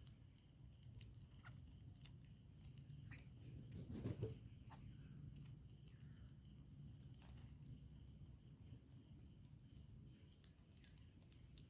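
Faint, steady high-pitched insect chorus, like crickets, with a few small clicks and a brief rustle about four seconds in.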